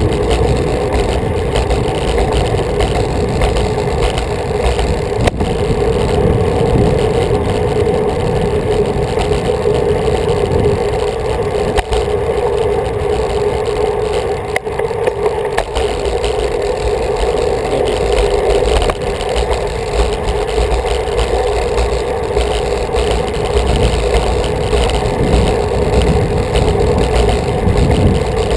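Steady rush of wind over a bike-mounted microphone while riding a road bike, with a low rumble and the rolling noise of the tyres on a concrete path.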